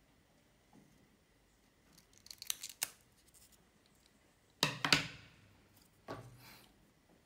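Scissors snipping through a thin plastic hydrogel screen-protector film: a few quick, crisp snips about two and a half seconds in, then a louder rustling knock a little before five seconds and a softer one near the end.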